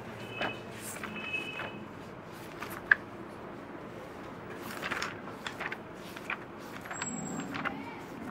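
Scattered light clicks and taps over quiet room noise, with one sharper click about three seconds in.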